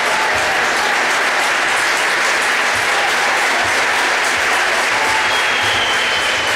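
Arena basketball crowd applauding and clapping steadily. From about five seconds in, a few high held tones join the crowd noise.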